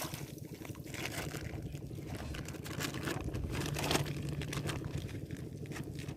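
Shallow water splashing and sloshing in irregular small splashes, with one slightly louder splash about four seconds in.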